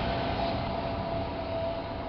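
Jet airliner's engines running after touchdown: a steady rushing noise with a thin high whine, fading as the aircraft rolls away along the runway.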